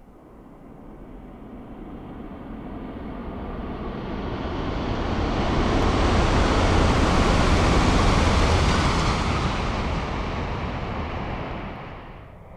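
ALFA-X E956 Shinkansen test train passing at 360 km/h: a rushing noise that builds steadily for about six seconds, is loudest for a few seconds as the train goes by, then fades and drops away suddenly near the end.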